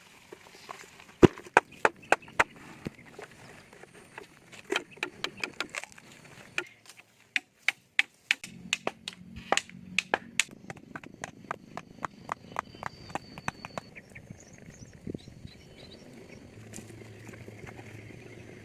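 Wood being chopped: a long series of sharp knocks in irregular runs, sometimes two or three a second, that thins out in the last few seconds.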